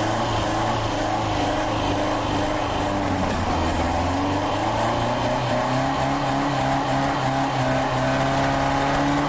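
Four-cylinder car engine running through four separate upright mufflers, one per cylinder, steady at first, then revving up a little about halfway through and holding there. Most of the noise is intake noise from the carburetor, which is running without its air filter, rather than exhaust noise.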